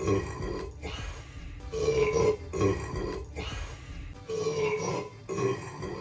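A man burping over and over, the burps coming in pairs about every two and a half seconds.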